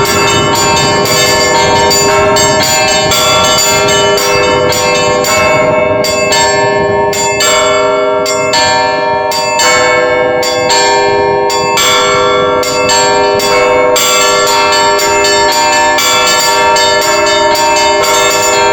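Russian Orthodox monastery bells rung in the "Petersburg" ringing style as the call to the all-night vigil: a rapid stream of small-bell strikes over the ringing of larger bells. A few seconds in, the high small bells thin out, leaving mostly the middle and larger bells, and the fast small-bell strikes come back in near the end.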